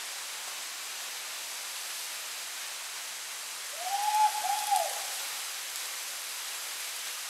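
Steady rush of falling water from a waterfall, with a loud two-note hooting call, rising then falling, about four seconds in.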